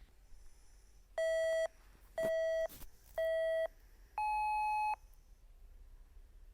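Electronic countdown beeps: three short identical beeps about a second apart, then a fourth that is higher and longer, marking the start of a hearing test.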